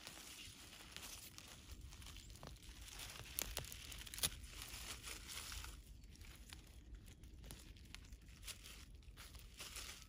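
Gloved hands pulling a spent cabbage plant out of a raised bed by its roots and handling its dry leaves and soil: faint rustling and crackling, with a couple of sharper snaps three to four seconds in.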